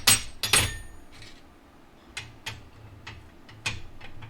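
Steel rivet nut hand tool being backed off after setting a rivet nut: two loud metallic clanks with a short ring in the first second, then a run of lighter, irregular clicks.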